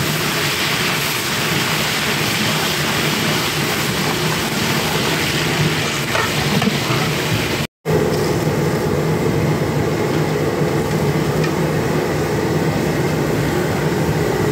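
Steady roar with a low hum from the burner under a large degh of simmering biryani masala. It cuts out for a moment about eight seconds in.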